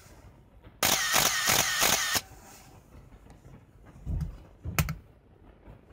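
Canon EOS-1 film SLR's shutter and mirror firing in a rapid continuous burst, with the motor whirring between the clicks, for about a second and a half. Near the end, soft handling knocks and a click from the camera body.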